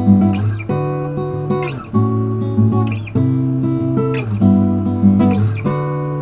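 Acoustic guitar strumming chords, with a new strum about every second, ending on a last chord that rings out and fades near the end.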